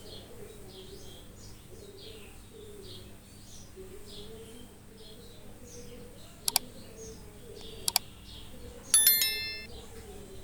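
Birds chirping repeatedly in the background. There are two sharp clicks about two-thirds of the way in, and a brief ringing chirp near the end.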